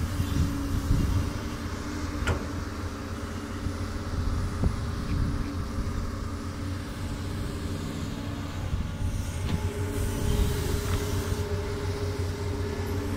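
Doosan DX200 crawler excavator running steadily under its diesel engine, with a couple of sharp knocks and a higher steady tone that comes in about two-thirds of the way through.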